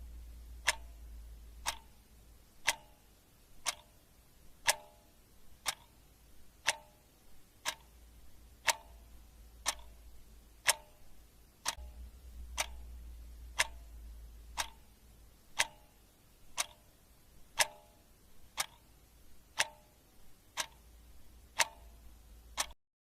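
A clock ticking steadily, about once a second, over a low rumble. It stops abruptly near the end.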